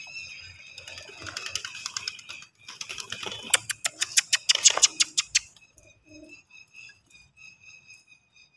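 Pigeons crowding round a water bowl: a rapid clatter of clicks for the first few seconds, then a faint high chirping repeated a few times a second.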